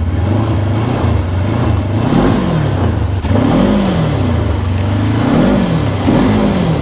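Polaris RZR 900 side-by-side's twin-cylinder engine revving up and down in repeated surges, about every second and a half, as the machine tries to drive out of deep snow with its tires spinning without grip.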